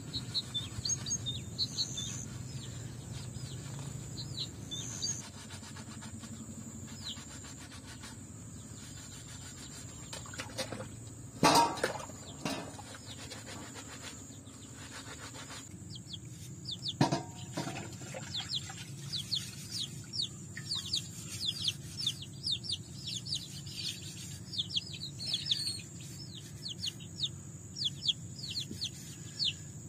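Birds chirping: quick series of short high chirps, each falling in pitch, thickening into a rapid run over the second half. Two louder sharp sounds come about eleven and seventeen seconds in.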